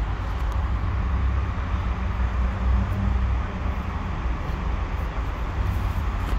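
Steady low rumble with a hiss above it, unbroken and with no separate event standing out: outdoor background noise.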